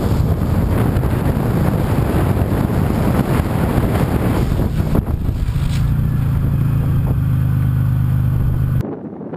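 A car engine running under heavy rushing noise, then holding a steady drone from about five seconds in. The sound cuts off abruptly near the end.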